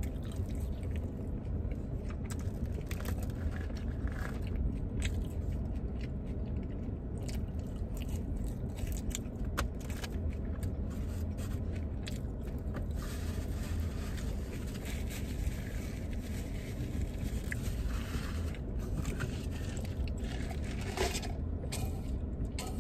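Close-up eating sounds: chewing and crunching of crispy fries, with a plastic fork scraping and clicking in a plastic takeout container. A steady low rumble runs underneath.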